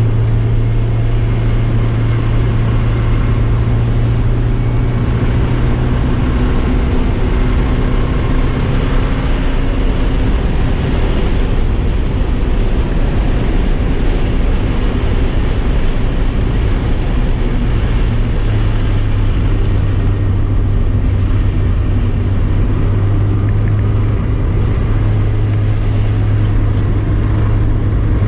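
Porsche 944's four-cylinder engine running hard at track speed, with heavy road and wind noise. The engine note drops for a stretch about a third of the way in, then climbs back and holds high.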